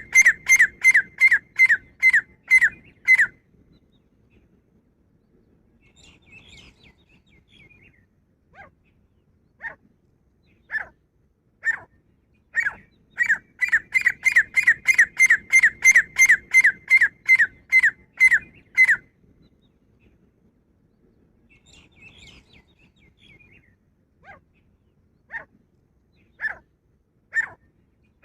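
Female grey francolin (teetar) calling. A quick run of loud, repeated, high notes, about three or four a second, stops about three seconds in. A few spaced single notes and soft chatter follow, then a second long quick run through the middle and more spaced single notes near the end.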